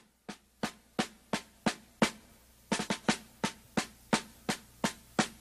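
A lone drum tapping a steady march beat, about three strokes a second, growing louder over the first two seconds: the drum lead-in to a piece of music.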